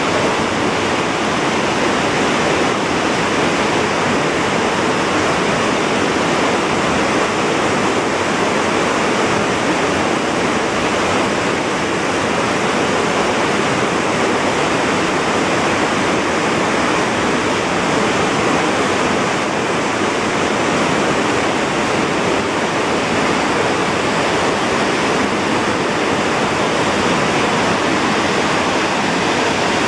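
Steady rush of churning water in a cruise ship's wake, an even noise that does not change.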